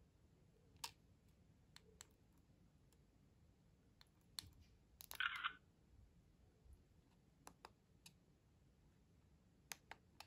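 Faint, scattered clicks and taps of objects being handled, with one brief, louder rustle about five seconds in.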